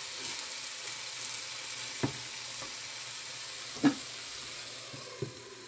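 Mixed vegetables sizzling as they fry in a pan, the hiss easing slightly near the end. A few soft knocks break in, the sharpest about four seconds in.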